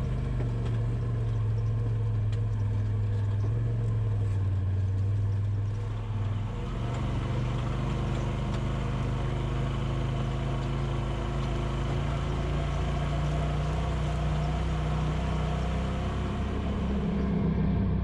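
Polaris RZR Pro XP side-by-side's twin-cylinder engine running steadily at low revs, its note shifting about six seconds in and rising near the end.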